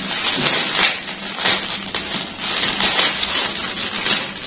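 Gift packaging rustling and crinkling as it is pulled open by hand, in irregular bursts.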